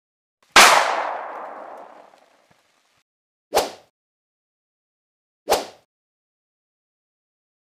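A loud clang-like sound effect about half a second in, ringing out and fading over about a second and a half. It is followed by two short message-pop sounds as new chat bubbles appear.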